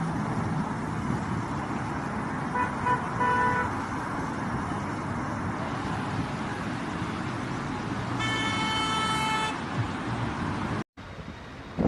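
Car horns sounding over a steady rushing street noise: a few short toots about three seconds in, then a longer horn blast held for just over a second around eight seconds in.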